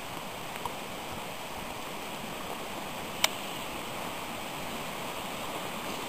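Steady rushing of the Deschutes River running high, with one sharp click about three seconds in.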